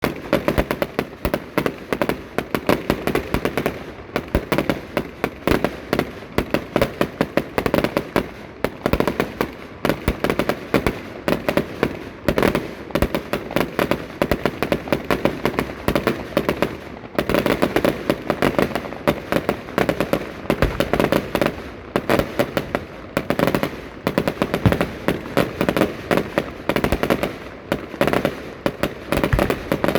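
Fireworks display going off: a rapid, unbroken series of bangs, several a second, overlapping throughout.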